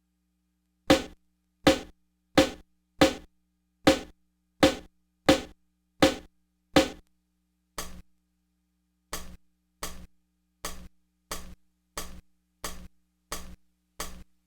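E-mu SP-1200 sampler playing one drum sample over and over, about one and a half hits a second. The hits drop noticeably in level about eight seconds in.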